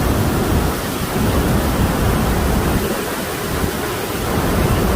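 Waterfall up close: a loud, steady rushing of falling water and spray, with a heavy, uneven rumble from wind and spray hitting the phone's microphone.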